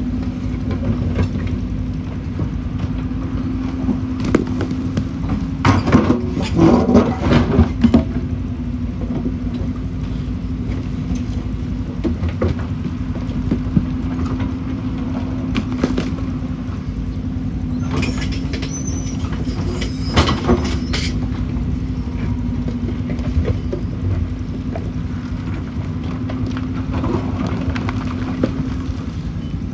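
Diesel excavator engine running steadily. Two spells of clattering knocks come through it, about six seconds in and again around twenty seconds, likely the bucket working rock.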